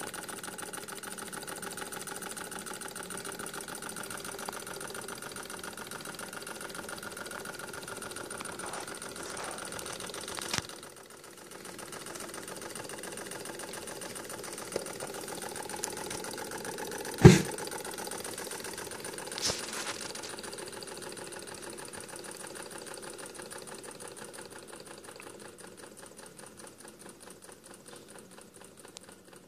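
Small homemade alcohol-fired Stirling hot air engine running, its moving parts clattering in a fast, even patter. A loud single knock stands out a little past halfway, with a couple of fainter clicks around it, and the running grows fainter near the end.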